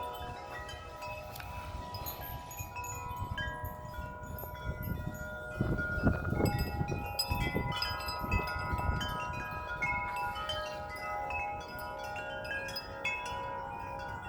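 Many wind chimes ringing together in strong gusty wind, their overlapping metal tones sustaining and layering. A gust rumbles on the microphone about five to nine seconds in.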